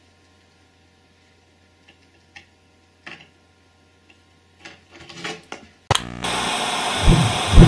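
A few faint clicks and taps in a quiet room, then about six seconds in a sudden loud steady hiss from the end-screen sound effect starts, with heavy thumps near the end.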